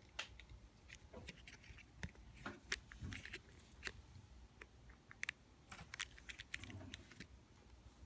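A cat chewing and biting dried catnip: faint, irregular crunching clicks.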